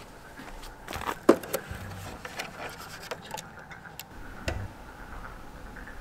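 Scattered clicks and knocks of small objects being handled, the sharpest about a second in, over a faint steady chorus of frogs.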